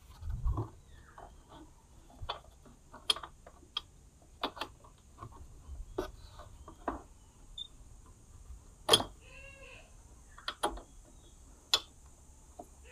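Scattered metallic clicks and light knocks of hand tools and bolts against the Yamaha Sniper 150's crankcase as crankcase bolts are fitted by hand. A short animal call sounds once, about three quarters of the way through.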